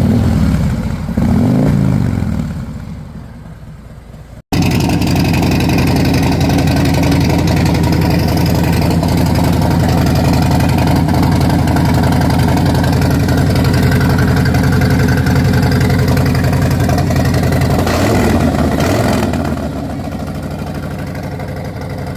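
Harley-Davidson Road Glide Special's Milwaukee-Eight 114 V-twin running. Its throttle is blipped a couple of times and it fades away. Then, after an abrupt cut, it idles loud and steady, with another short rev near the end before settling lower.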